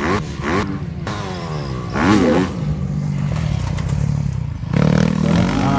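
Several 250 cc grasstrack racing motorcycles revving hard, their engine notes overlapping and rising and falling as the riders work the throttle. Louder swells come about two seconds in and again near the end.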